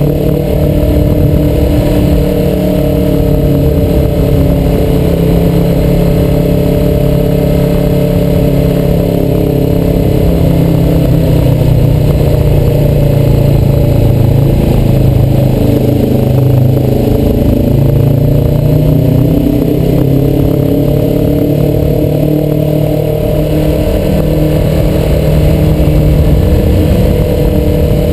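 Suzuki motorcycle engine roar heard from the rider's position, with wind rushing over the microphone. The engine note falls about halfway through and climbs again, easing off and then pulling away.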